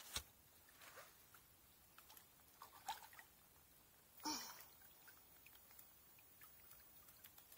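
Near silence with a few faint taps and rustles, and one louder brushing rustle about four seconds in as the landing net is moved.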